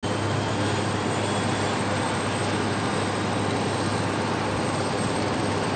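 Large helicopter idling on the ground before takeoff, its turbine and rotor making a steady, unbroken hum.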